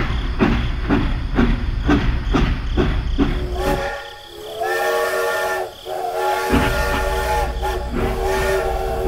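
Toy steam locomotive's electronic sound effects: rhythmic chuffing at about two strokes a second, then from about three and a half seconds in a long multi-note steam whistle, broken once briefly.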